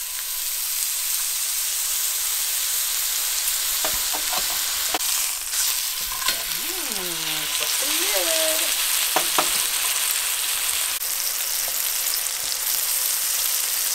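Steak searing in oil in a cast iron skillet: a steady, strong sizzle. A few sharp clicks of metal tongs against the pan come as the steak is turned.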